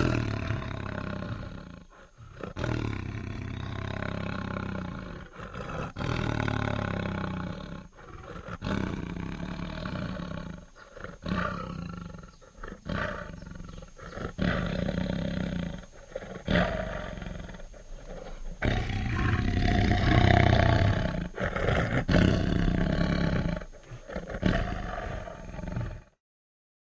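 Tiger roaring and growling: a series of about ten deep, rough roars, each a second to several seconds long, separated by short pauses. The roars cut off abruptly near the end.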